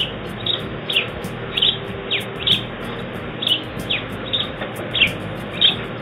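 House sparrow chirping: a steady series of short, falling cheeps, about two a second, over the hiss of a field recording.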